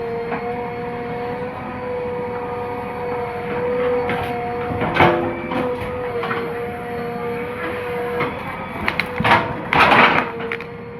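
JCB 3DX backhoe loader working, its diesel engine running under a steady high hydraulic whine, with several sharp metal clanks, the loudest about halfway through and near the end.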